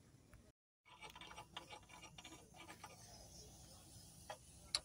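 Faint scattered metal clicks and light scrapes from a hand working parts inside the open housing of a small diesel engine, with a sharper click near the end.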